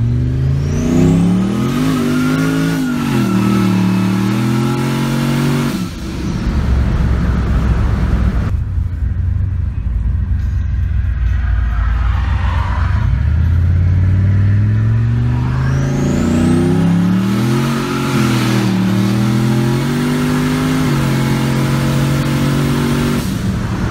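Turbocharged LS V8 in a Chevy Colorado pickup pulling hard twice, the engine note climbing and dropping back through gear changes, with a rising turbo spool whistle at the start of each pull. Between the two pulls the engine settles to a lower, steadier note.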